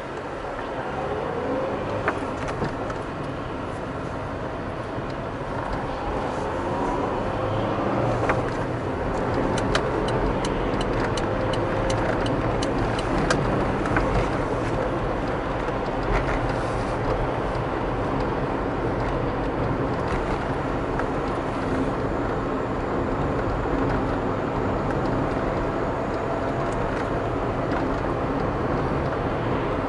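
A car driving in city traffic: steady engine and tyre noise, with the engine pitch rising as the car accelerates away over the first several seconds. A run of light ticks comes about a third of the way in.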